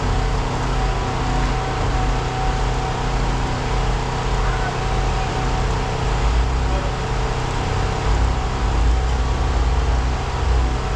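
Steady machine drone: a deep rumble with several held tones above it, unchanging throughout.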